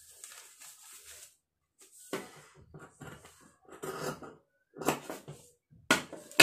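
Fabric scissors cutting blouse cloth and a paper pattern being slid and handled on a wooden table: a handful of separate, irregular snips and rustles.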